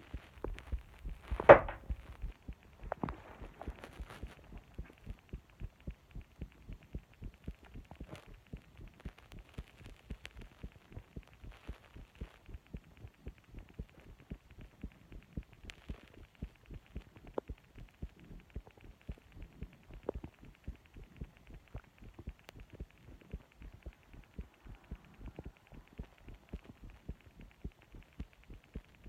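A person's heartbeat picked up at the chest: a steady, regular train of low thumps. A single sharp knock stands out about a second and a half in.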